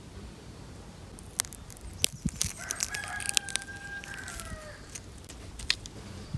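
Sharp crackling snaps and squelches of fruit being crushed by hand. About two and a half seconds in, a rooster crows once: a held call that falls away at the end.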